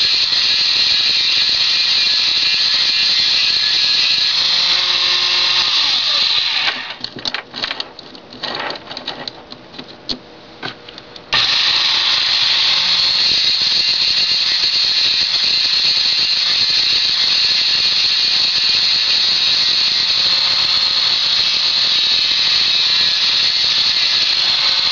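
12-volt electric chainsaw sharpener grinder running with a high, steady whine as its stone grinds the saw chain's cutters. About seven seconds in it stops for some four seconds with a few scattered clicks, then starts again at full level.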